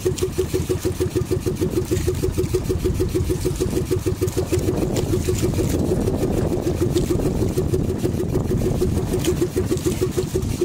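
Small outrigger boat's engine running steadily at low revs: a fast, even putter.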